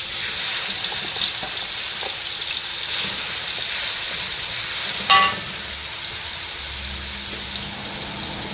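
Ground chili paste sizzling steadily in hot vegetable oil in a wok as it is scraped in with a wooden spatula, over the steady hum of a smoke-extractor blower. About five seconds in, a brief, sharp squeaky scrape stands out as the loudest sound.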